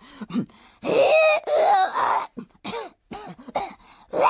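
A woman's voice imitating a rooster's crow about a second in: a hen character's strained, wavering attempt at crowing that fails, followed by short coughing, throat-clearing sounds.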